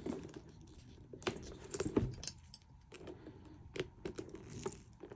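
A handbag being handled: rustling, with a few sharp clicks and clinks from its metal hardware.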